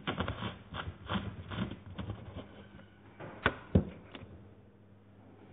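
Clattering handling noise: a quick run of clicks and taps as drink cans and a plastic bottle are moved on a tabletop, then two sharp knocks close together about three and a half seconds in.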